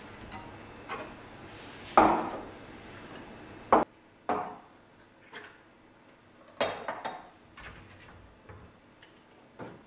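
Glass tumblers being set down on a countertop: a series of short clinks and knocks, the loudest about two seconds in with a brief ring.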